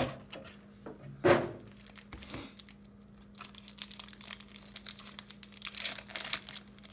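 Foil Pokémon booster pack crinkling and tearing as it is ripped open by hand, with a sharper knock about a second in and a faint steady hum underneath.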